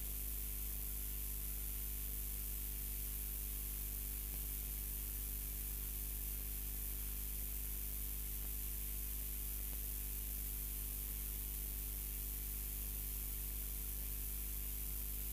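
Steady electrical hum and hiss: a low buzz of several steady tones with a constant hiss above it, unchanging throughout, with no other sound on top.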